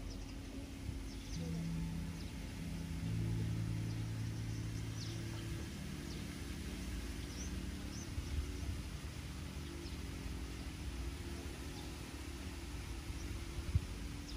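Low steady motor hum that swells about three seconds in and eases off about six seconds in, with faint short high chirps scattered over it.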